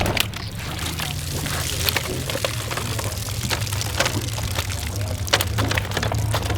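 Water pouring and splashing over a steady low hum, with a few short clicks and knocks.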